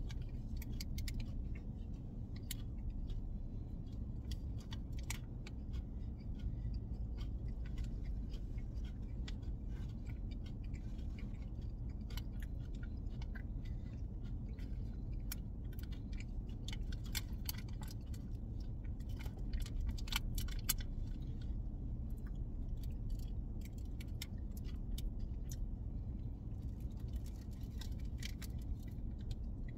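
A chocolate-coated protein bar being handled and eaten: scattered crackles of its plastic wrapper and chewing, over a steady low hum.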